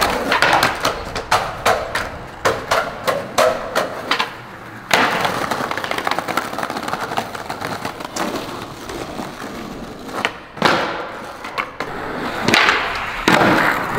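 Skateboard wheels rolling over street pavement: a run of sharp clacks for the first few seconds and again near the end, with a steady rolling rumble between.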